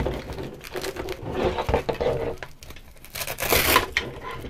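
Nylon webbing straps and plastic buckle of a drop leg holster being handled and adjusted: rustling and small clicks, with a longer, louder rasp about three seconds in as a strap is pulled.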